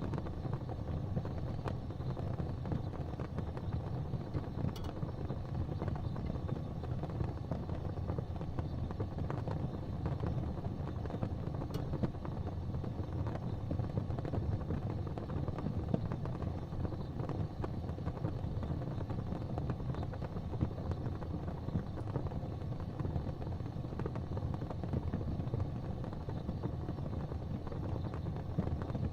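Fire burning with a steady low roar and dense crackling, with an occasional sharper pop.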